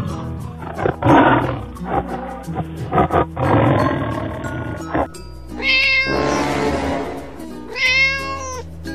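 Cartoon background music with animal sound effects over it: a rough, noisy stretch for the first five seconds, then a short animal call, a hiss-like burst, and a second, wavering animal call near the end.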